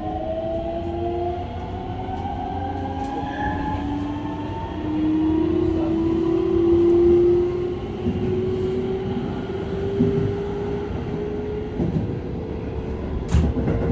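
Keihan 3000 series electric train pulling away, its traction motor whine rising slowly in pitch as it gathers speed, with a sharp knock near the end.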